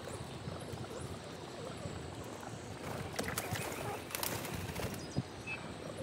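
Pigeons' wings flapping in a short flurry about halfway through, over a steady outdoor background hiss.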